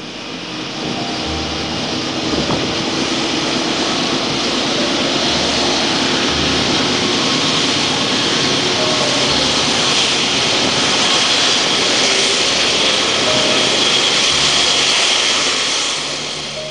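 Freight train passing close by: a diesel locomotive followed by rolling freight cars, a steady loud rush and rumble. It builds over the first few seconds and cuts off abruptly near the end.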